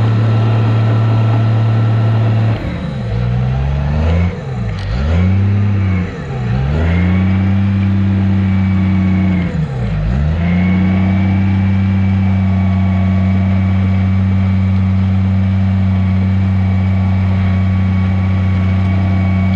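Diesel engine of heavy earthmoving equipment running hard; its pitch dips and climbs back several times in the first half, then holds steady.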